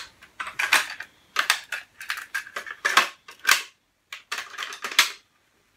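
Plastic clicks and clatter from a Pioneer CT-W205R double cassette deck as its transport buttons are pressed and the cassette door is opened, with the cassette handled in the open well. The clicks come in a quick irregular run and stop abruptly about five seconds in.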